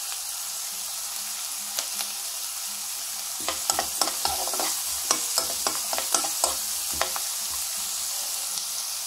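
Chopped onions sizzling steadily in hot oil in a pan. About three and a half seconds in, a spatula stirs them for a few seconds, with a quick run of scrapes and knocks against the pan.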